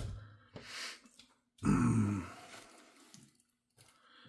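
A short, low grunt-like vocal sound about one and a half seconds in, fading out over the next second, after a soft knock and a brief rustle of handling near the start.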